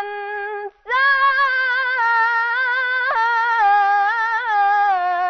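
A woman sings an Arabic nasheed without accompaniment. She holds one note, breaks off briefly about a second in, then begins a long ornamented phrase with wavering held notes.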